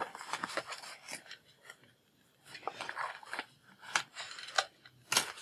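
Hands handling a cardboard product box and a plastic USB cord: faint rustling and scraping with a few light clicks, pausing briefly about two seconds in.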